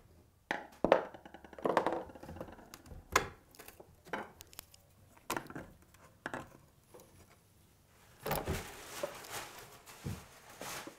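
Wooden staff beads of a sash window being prised off the frame: a series of sharp wooden knocks and clicks, then a longer rough scraping noise over the last few seconds.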